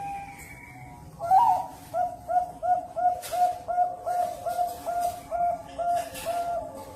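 Zebra dove (perkutut) singing its staccato cooing song: a loud opening note about a second in, then a quick, even run of about a dozen short coos at roughly three a second. Fainter coos are heard in the first second.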